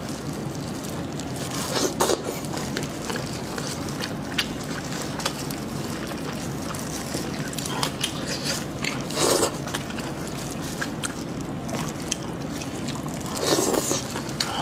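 Plastic-gloved hands tearing apart a braised sheep's head: wet tearing and pulling of meat off the bone, with scattered sharp cracks. The loudest come about nine seconds in and near the end.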